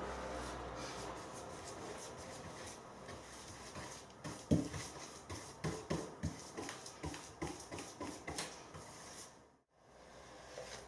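A series of light, irregular taps and knocks, roughly two a second, starting about four seconds in and stopping just before a brief dropout to silence.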